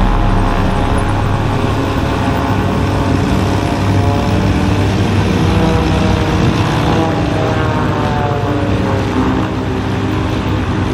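Light twin-engine piston propeller plane taxiing, both engines running at low power with a steady drone. Partway through, some of the engine tones slide down in pitch.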